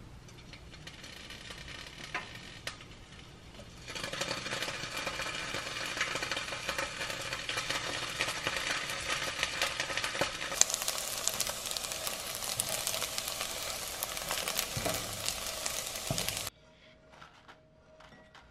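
Small cubes of tofu pan-frying in hot oil: a dense crackling sizzle that starts about four seconds in and turns sharper and hissier partway through. It cuts off abruptly a couple of seconds before the end.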